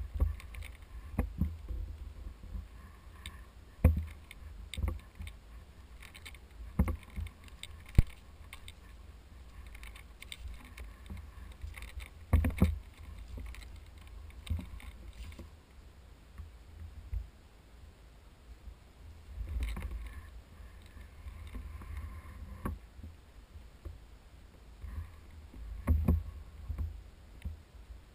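Rustling and footsteps through dry leaf litter and undergrowth, with a low rumble of wind and handling on a body-worn camera microphone and a few sharp knocks, the loudest about 8 seconds in.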